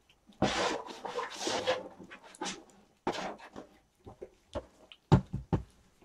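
Kittens moving about, with a stretch of rustling and scuffing followed by a few short knocks and scuffs.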